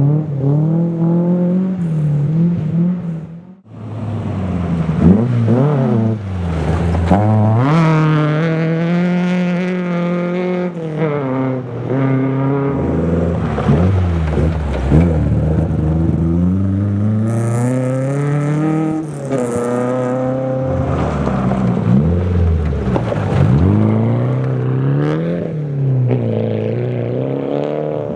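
Rally car engines revving hard and shifting up through the gears as cars pass one after another on a gravel stage, the pitch climbing and dropping over and over. The first car is a Datsun 1600, and the sound briefly drops out about three and a half seconds in.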